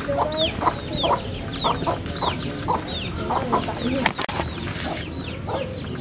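Chickens clucking, with high, falling peeps repeating about twice a second over short, lower clucks. There is a sharp click about four seconds in.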